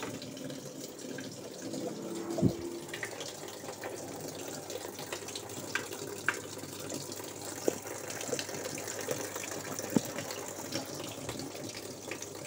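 Samsung WA80V4 top-loading washing machine filling: a steady stream of water pours from the inlet into the drum and splashes on the bottom of the tub, the fill stage of a cycle on a machine running again after its control module was replaced. A knock sounds about two and a half seconds in, with a few light clicks later.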